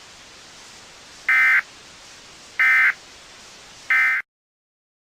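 Emergency Alert System end-of-message: three short bursts of SAME digital data tones, a buzzing warble, about 1.3 seconds apart over a low hiss.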